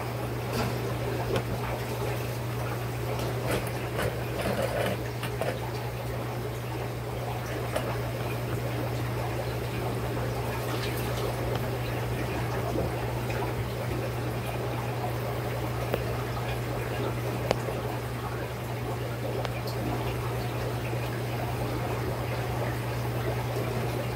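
Aquarium water trickling and bubbling, with faint scattered ticks over a steady low hum.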